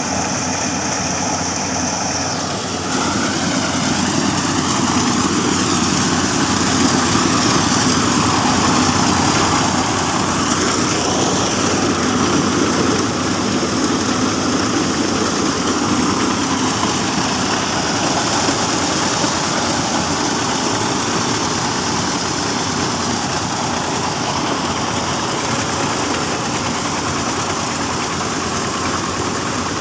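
Engine-driven corn grinding mill running with a steady, loud mechanical din. Its sound shifts slightly about three seconds in, then holds steady.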